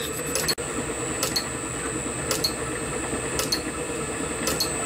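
Steady hum of a small machine motor, with a faint click repeating about once a second.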